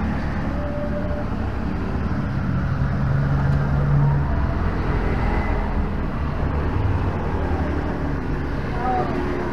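Steady low rumble of background road traffic, slowly swelling and easing.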